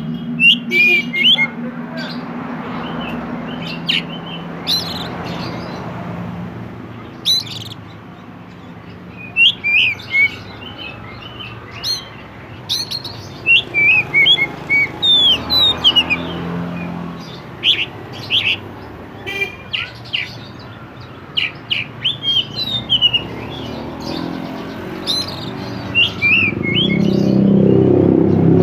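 Oriental magpie-robin singing: short, sharp whistled notes and quick chirps in bursts of rapid phrases. A steady low hum runs underneath and grows louder near the end.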